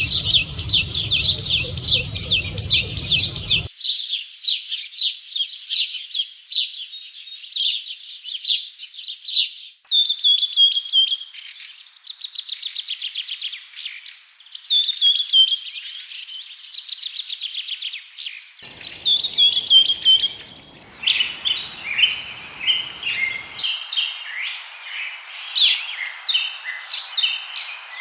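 Songbirds singing in rapid high chirps and trills, a lure recording to get caged birds singing; the song and its background change abruptly several times, as separate recordings are joined.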